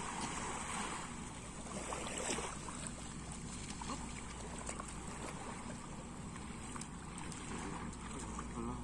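Steady wash of seawater in the shallows at the beach.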